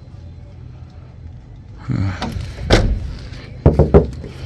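A 2004 Nissan Serena's car door being shut with one sharp thud about two and a half seconds in, followed by a few lighter knocks near the end.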